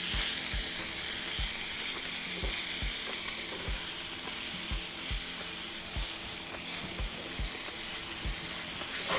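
Minced meat and onion sizzling in a nonstick frying pan while being stirred with a spatula, with soft regular knocks about twice a second.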